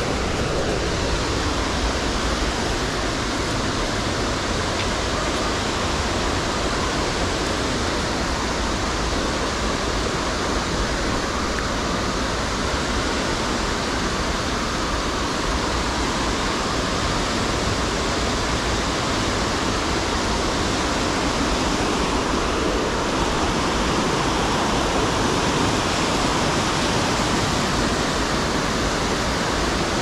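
Waterfall: a steady, loud rush of falling water that stays even throughout.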